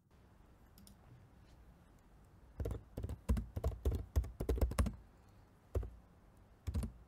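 Typing on a laptop keyboard: after a quiet start, a quick run of keystrokes lasting about two seconds, then a couple of single key presses near the end.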